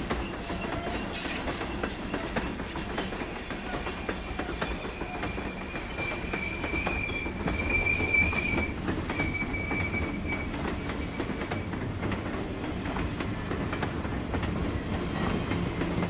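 A train passing close by, its wheels clattering steadily over the rails, with thin high-pitched wheel squeal joining about six seconds in and fading near the end.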